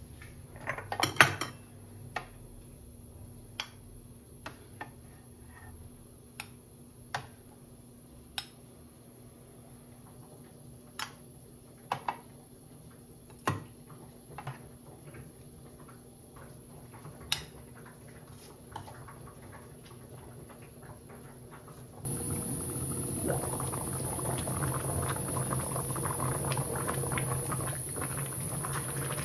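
Stainless steel trays, ceramic plates and a serving spoon clinking and knocking now and then as side dishes are moved and plated. About 22 seconds in, this gives way to a pot of kimchi stew bubbling steadily at a simmer.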